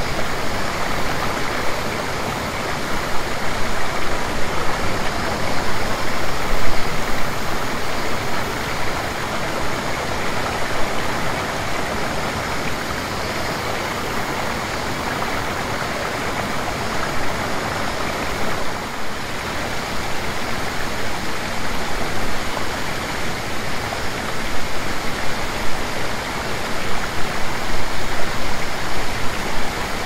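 Waterfall and its stream rushing steadily, a dense even hiss of falling and flowing water that swells and eases a little.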